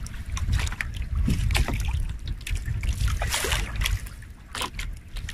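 Small waves lapping and splashing against the hull of a small boat drifting on choppy sea, with short irregular splashes over a steady rumble of wind on the microphone.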